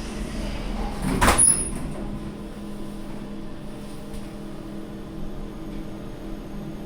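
Kone MonoSpace traction lift: a thud about a second in as the doors shut, then the car travels upward with a steady low hum.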